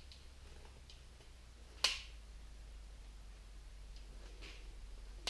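One sharp snap of a cutter cutting through wire-harness shielding about two seconds in, with a fainter click near the end.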